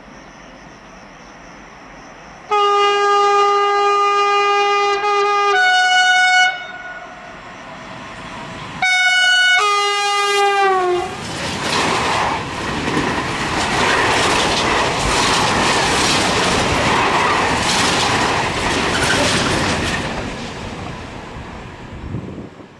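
Electric freight locomotive sounding its horn twice as it approaches: a long blast that changes note partway through, then a shorter blast that sags in pitch as it ends. The freight train then passes close by, its wagons rumbling and clattering over the rails for about ten seconds before fading.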